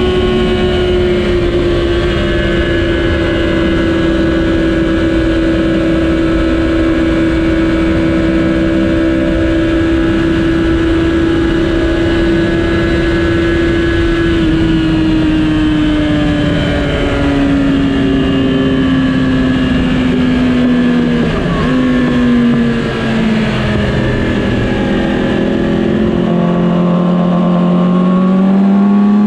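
2007 Yamaha R6's inline-four engine running hard on track. Its pitch sinks slowly for most of the stretch, drops in a few quick steps about two-thirds through, then climbs again near the end.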